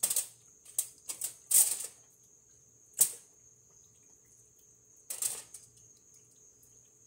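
Hands digging a piece of marinated raw chicken out of a pot: a handful of short rustles and knocks, the loudest about one and a half seconds in, the last about five seconds in.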